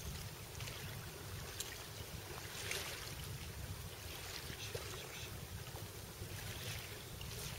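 Wind rumbling on the microphone over small waves washing on a pebble shore, with a few brief splashes.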